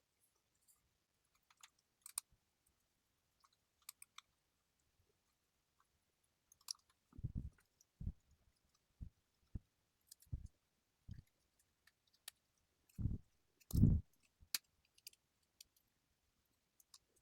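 Scattered small clicks and taps of a prying tool working at a smartwatch's rear glass and its parts being handled, with a few dull thumps about seven and thirteen seconds in.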